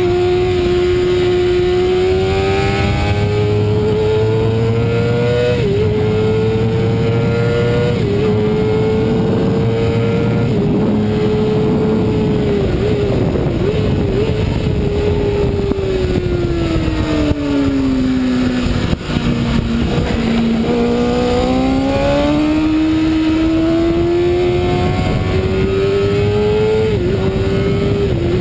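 Racing motorcycle's engine heard from on board at full throttle, its pitch climbing and then dropping sharply at each upshift, with wind rush underneath. About two-thirds of the way through the revs fall away as the bike slows, then climb again under hard acceleration, with another upshift near the end.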